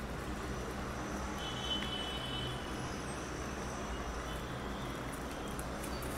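A steady low rumble of background machine or traffic noise, with faint crunching of rabbits chewing fresh greens close by.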